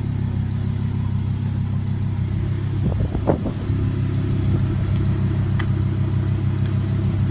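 Lamborghini Performante's V10 engine idling steadily, with an even low hum.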